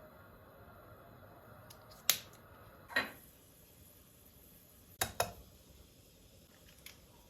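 A few sharp clicks or knocks of objects being handled in a quiet room: one about two seconds in, another a second later, and a quick pair near five seconds.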